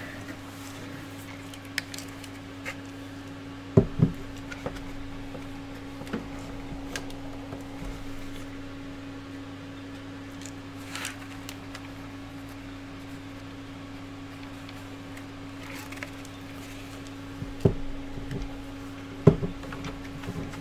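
A steady low hum under a few scattered knocks and clicks of small parts and tools being handled on a workbench. Two louder knocks come about four seconds in and two more near the end.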